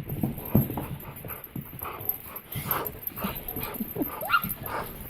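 Dogs playing, with short whimpers and yips and a brief rising whine about four seconds in.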